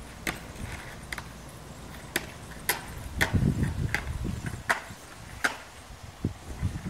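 Irregular sharp clicks and knocks of hard parts and tools being handled, about eight over a few seconds, some with a low thump. These fit the work of removing and swapping a manual gear shift knob.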